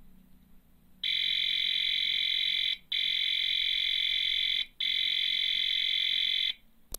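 Electronic sound effect from a PC-8001's add-on sound board: a loud, steady, buzzy alarm-like tone sounding three times, each about two seconds long with short breaks between.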